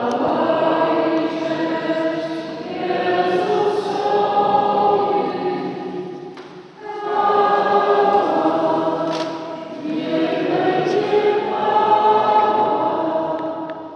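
A group of people singing together in a church, holding long sung notes in phrases, with a short break about six and a half seconds in.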